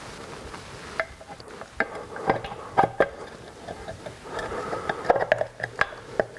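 Light metallic clicks, knocks and rubbing as an alloy engine side casing is worked by hand onto the crankcase of a BSA A65 twin. A run of sharp clicks comes about one to three seconds in and another near the end.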